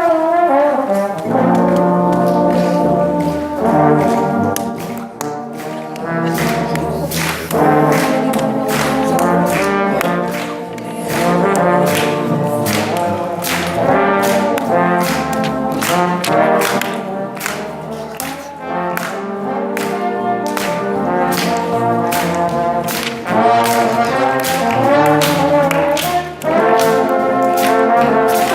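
Brass ensemble led by trombones playing a lively piece, with sustained chords changing about every second and a steady beat of percussion hits.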